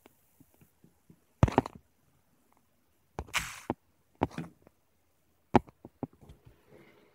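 A few sudden knocks and clicks with near silence between them, and a short hiss lasting about half a second a little past the middle; the sharpest hits come about a second and a half in and again near the end.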